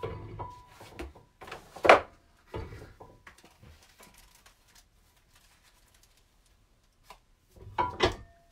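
Knocks and rustles of a book and its boards being handled and set into a nipping press. The loudest knock comes about two seconds in, with another cluster of knocks near the end and a quiet stretch between.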